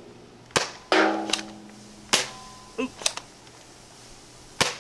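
Spring-powered Nerf blaster firing half darts in succession from a five-round inline clip fitted in its barrel: about six sharp pops, irregularly spaced, one followed by a brief ringing tone.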